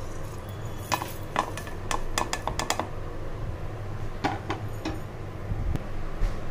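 Stainless steel mixer-grinder jar clinking and rattling as seeds go into it: a cluster of short metallic clinks about a second in, another just past the midpoint, over a low steady hum.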